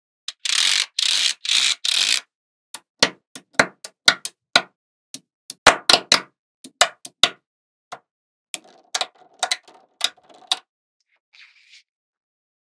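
Small magnetic balls clicking against each other. A dense clattering rattle runs for the first two seconds, then single sharp clicks follow one another irregularly as balls snap together, stopping about two seconds before the end.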